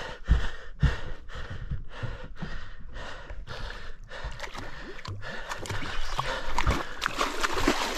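Noise of a giant trevally fight at the boat's side: a rhythmic rustle about twice a second for the first few seconds, then a steadier wash with water splashing as the fish swirls at the surface.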